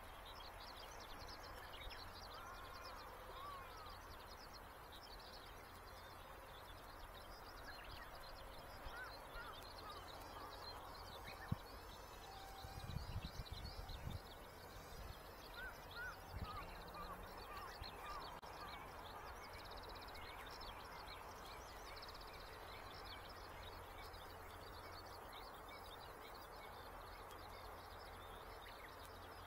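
Faint outdoor ambience of small birds chirping, over a steady low rumble. A single click comes a little before the middle, followed by a brief louder rumble.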